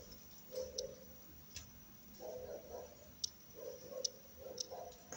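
Faint, irregular metallic clicks of circlip pliers working at the retaining ring (snap ring) of a driveshaft universal joint, with light scraping of metal on metal.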